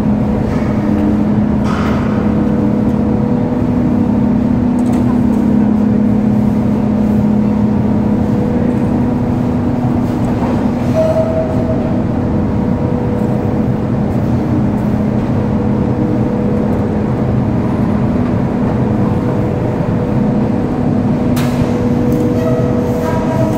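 Tea-processing machinery running in the factory hall: a loud, steady mechanical drone with a constant low hum.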